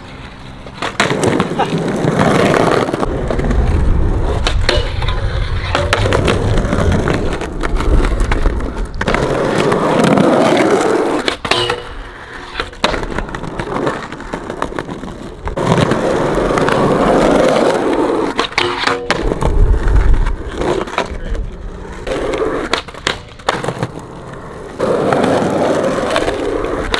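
Skateboard wheels rolling on concrete transition, the rolling noise swelling and fading in long surges as the board carves up and down the walls. Sharp clacks of the board's tail and landings break in now and then, several close together around the middle.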